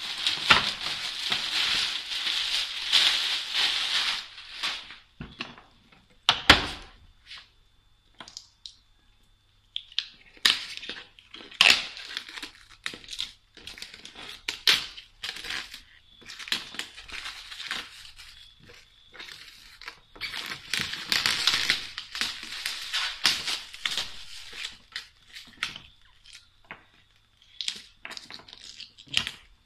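Clear plastic wrap and thin protective film crinkling and crackling as they are pulled and peeled off a hard-shell suitcase. The sound comes in bursts with short pauses between them, and is densest in the first four seconds and again about twenty seconds in.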